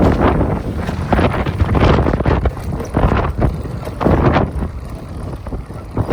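Wind buffeting the microphone: a loud low rumble that swells in irregular gusts.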